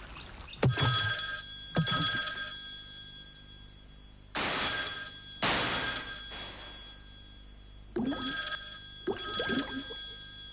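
Telephone bell ringing in a double-ring cadence: three pairs of rings, the pairs about three and a half seconds apart, each ring fading away slowly.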